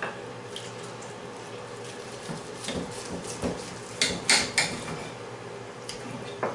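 Carving knife and fork clinking and scraping against a ceramic platter while a roast is sliced, in short sharp strokes; a cluster of scrapes about four seconds in is the loudest.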